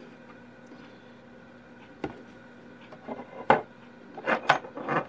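A few light clicks and knocks from handling small ratchet wrench parts and an oil bottle: one about two seconds in, one louder a second or so later, and a quick cluster near the end. A faint steady hum lies underneath.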